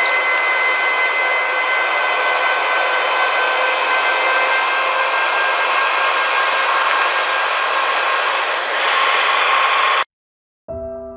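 Airbus A330-300 cabin noise in the climb after takeoff, with its General Electric CF6 turbofans: a steady rush of air with a few steady whining tones over it. About ten seconds in it cuts off abruptly, and soft piano music begins a moment later.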